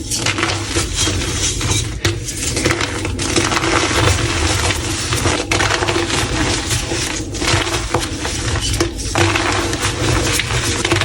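Blocks of gym chalk being crushed, with dense, continuous crunching and crumbling made up of many small crackles.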